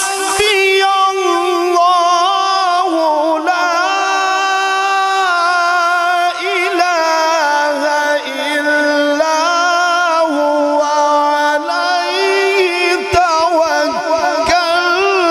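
A man's melodic Quran recitation (tilawat) in the Egyptian-style mujawwad manner, sung in long, high, ornamented held notes that waver and glide between pitches, amplified through a microphone.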